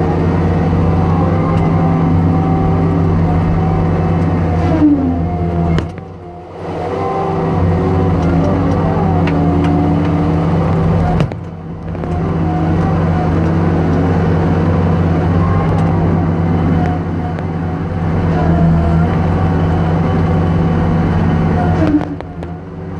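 Timberpro TL745C feller buncher's engine and 24C hot-saw head running hard while felling hardwood: a steady deep drone with a wavering whine above it. The sound dips briefly about six seconds in, again about eleven seconds in, and near the end.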